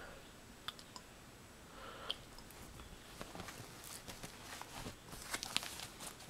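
Faint, irregular crunching and clicking of scissors cutting through a bandage, getting busier from about halfway in.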